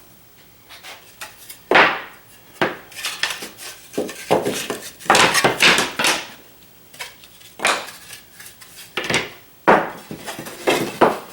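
Irregular knocks and clatters of hard objects being handled and set down, about a dozen separate hits with some short rattles.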